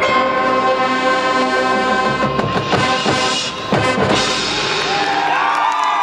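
Marching band's brass and winds holding a loud sustained chord over the drum line, with a run of heavy drum hits partway through. Near the end a crowd starts cheering and whooping.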